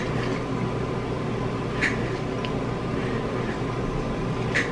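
Steady low hum and room noise, with three brief soft sips or breaths from a person drinking from a mug.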